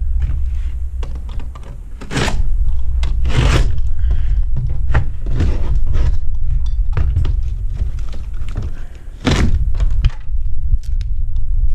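A series of thunks and knocks over a steady low rumble, with three louder strikes about two, three and a half, and nine seconds in.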